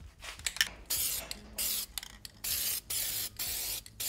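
Aerosol can of flat black spray paint hissing in short bursts, about four of them, each under a second with brief pauses between. A few light clicks come just before the first burst.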